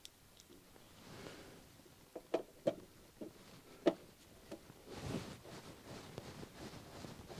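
Screwdriver driving a small screw into the metal front plate of a manual transfer switch: a few faint scrapes and sharp clicks, the loudest tap near four seconds, with soft rustling of hands and sleeve.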